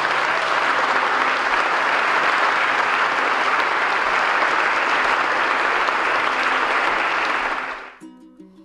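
Congregation applauding steadily. The applause fades out near the end as plucked-string music begins.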